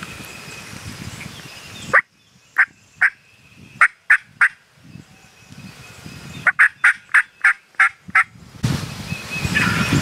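Wild turkey yelps: a sharp rising note, then five scattered yelps and a quicker run of about eight yelps.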